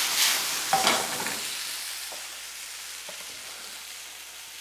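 Chicken breast slices and finely chopped onion sizzling in a hot frying pan over a gas flame, with a couple of clatters as the pan is tossed in the first second. The sizzle then dies down steadily.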